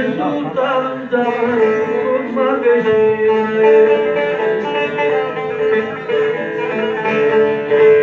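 Bağlama (saz) playing an instrumental semah tune: a plucked melody over a steady drone note.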